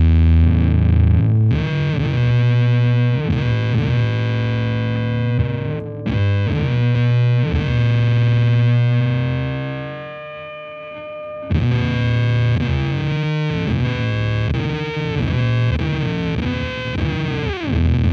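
Electric guitar through the Devi Ever Big Distortion Sound Machine fuzz pedal at high gain, played into a valve amp. Sustained, heavily fuzzed chords and notes with string bends. One chord fades away about ten seconds in before the next is struck, and a note bends sharply down near the end.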